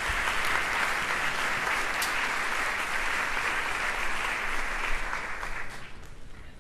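Concert-hall audience applauding, dying away near the end.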